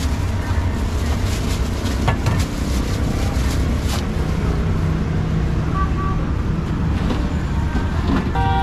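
Steady rumble of street traffic, with a few sharp knocks about two seconds in and again near four seconds.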